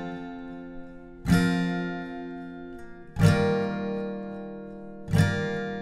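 Background music: an acoustic guitar strumming a chord about every two seconds, three times, each chord left to ring out.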